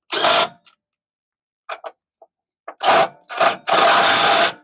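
A handheld power tool, likely cordless, run in short bursts: one brief burst at the start, then three more about three seconds in, the last nearly a second long.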